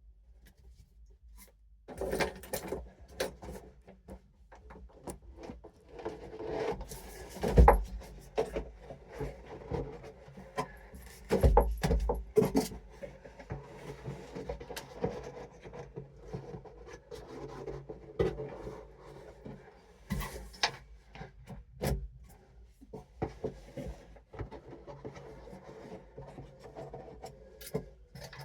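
A heavy 15-inch subwoofer being shifted and worked into place: scraping and rubbing with scattered knocks, the two loudest thumps about 7.5 and 11.5 seconds in.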